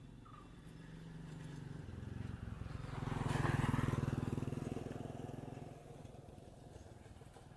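A motor vehicle passing by: its engine swells to a peak about three and a half seconds in, then fades away.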